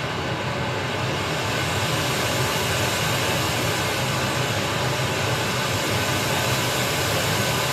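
Analog modular synthesizer imitating ocean surf: pink noise through the low-pass output of a state variable filter and a VCA, heard as a steady rushing hiss. The filter cutoff and level are driven by four free-running LFOs, mixed and smoothed by a slew limiter.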